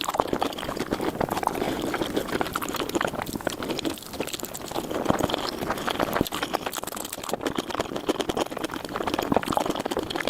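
Close-miked eating of noodles sped up four times: a dense, rapid run of wet chewing smacks, clicks and slurps.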